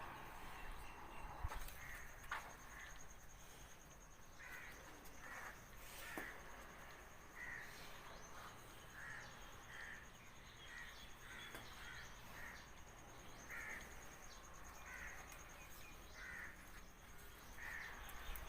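Crows cawing repeatedly, faint short calls about one a second.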